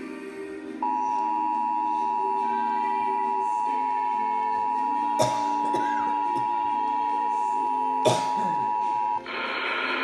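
Emergency Alert System attention signal: a steady two-tone alert tone that starts about a second in and holds for about eight seconds, with two sharp clicks partway through. Near the end it breaks into a short burst of buzzy data noise.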